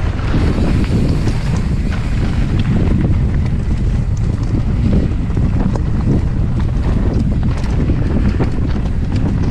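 Strong gusting wind buffeting the action camera's microphone: a loud, steady low rumble, with scattered small clicks and ticks on top.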